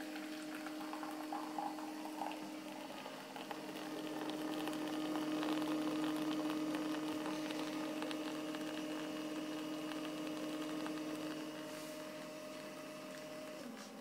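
Tiger bean-to-cup coffee machine's pump humming steadily as milky coffee streams from its twin spouts into a paper cup. The hum falls away and stops just before the end, as the dispensing finishes.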